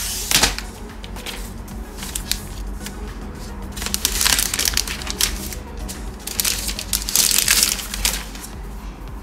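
Thin plastic packaging crinkling and rustling as it is handled and pulled off, in irregular bursts with the loudest stretches near the middle and toward the end.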